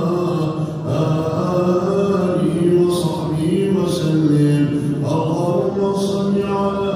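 A man chanting Islamic devotional recitation in long melodic phrases. The held notes slide slowly up and down in pitch.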